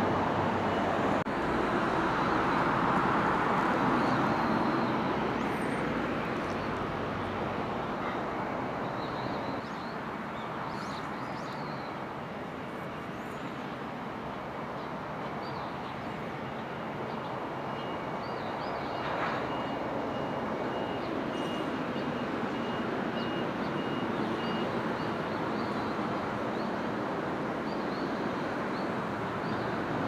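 Steady road-traffic noise, swelling as a vehicle passes in the first few seconds, with faint high bird chirps here and there.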